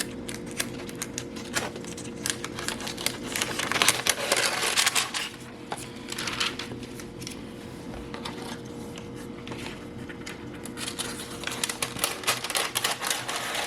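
Quick light clicking and rustling of kitchen things being handled, such as paper and pans, busiest twice, over a faint steady hum.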